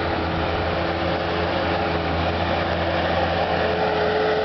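Heavy engine of a snow-clearing bulldozer running steadily, a low even hum.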